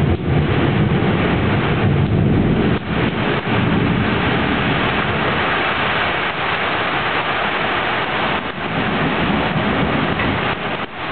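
Heavy rain pouring steadily in a thunderstorm. A low rumble of thunder runs under it and dies away about three seconds in.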